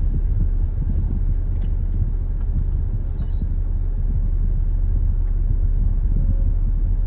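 Steady low rumble of a car on the road, engine and road noise, with no sudden events.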